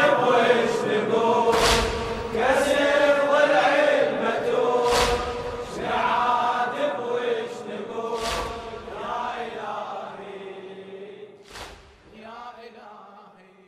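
A crowd of mourners chants a latmiya refrain together, with a heavy beat about every three seconds. The chanting fades out near the end.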